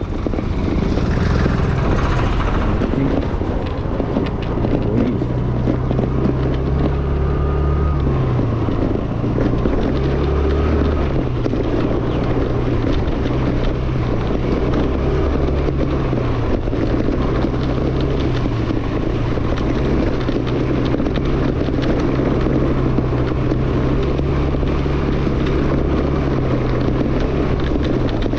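Yamaha Fascino scooter's single-cylinder engine running under way, its pitch going up and down over and over as the throttle changes, with wind rumbling on the microphone.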